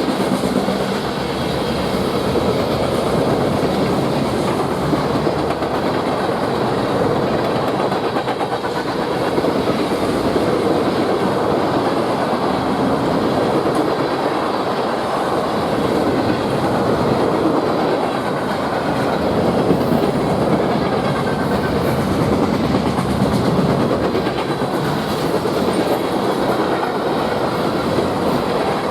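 Freight train cars rolling past at close range: a steady, loud noise of steel wheels running on the rails.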